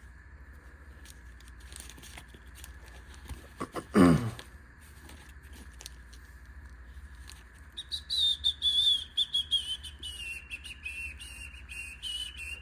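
Whistling: one high wavering tone that drifts slowly down in pitch over the last four or five seconds, in uneven pulses. Before it, about four seconds in, comes a single loud sweep that falls steeply in pitch, with light handling clicks scattered throughout.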